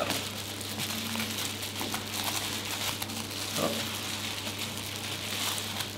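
Bubble-wrap packaging crinkling and crackling as it is handled and unwrapped, an irregular run of small crackles.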